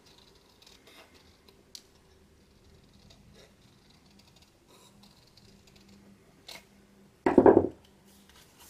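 Small scissors snipping thin paper card in a few quiet snips. Near the end comes a short, loud clunk: the scissors set down on the wooden tabletop.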